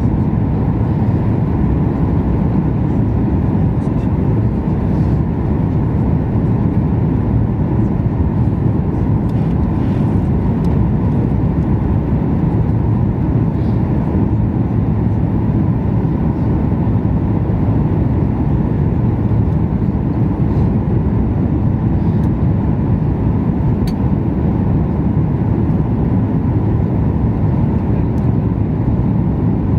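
Steady low rumble of cabin noise inside a Boeing 737 MAX 8 airliner, engine and airflow noise with no distinct events.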